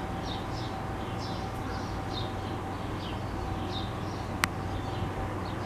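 Small birds chirping, short high downward chirps repeated a few times a second, over a steady low background rumble, with one sharp click about four and a half seconds in.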